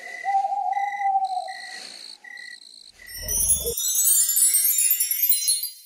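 Cricket-like chirps, a short high note repeating about every 0.7 s over a held lower tone. Just after the midpoint a brief low thump, then a glittering chime shimmer of high sliding notes near the end as the binocular view opens on a kingfisher.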